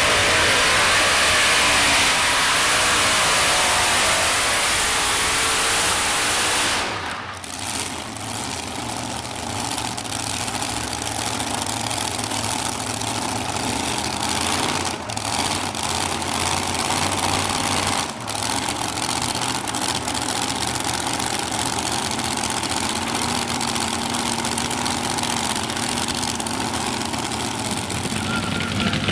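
Multi-engine modified pulling tractor at full throttle under load, its engines screaming with a wavering pitch, then shut off abruptly about seven seconds in. A lower, steady engine idle carries on for the rest.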